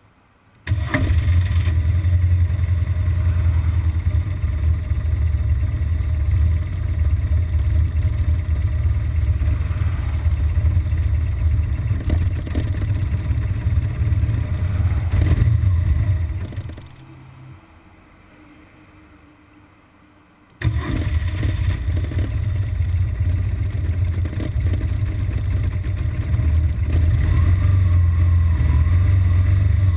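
BMW R1200GS Adventure flat-twin (boxer) engine catching suddenly and idling. Its running dies away about 16 seconds in, a stall. It catches again about 21 seconds in and runs on. The stalling and rough idle are an intermittent fault that shows up in traffic after a long, fast run.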